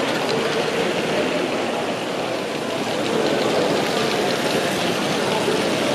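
Model railway goods train running along the layout, a steady rattle of its wagons on the track, over the background chatter of an exhibition hall crowd.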